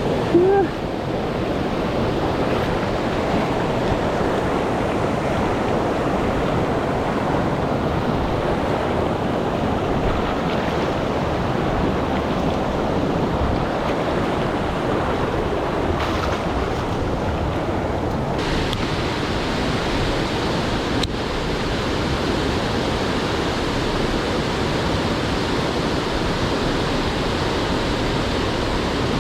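Swollen mountain stream rushing steadily, a constant wash of fast water.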